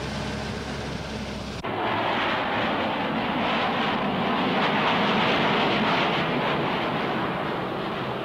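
Jet aircraft flying over: after a steady low drone, a loud, even rushing noise cuts in abruptly about a second and a half in, swells toward the middle and eases off near the end.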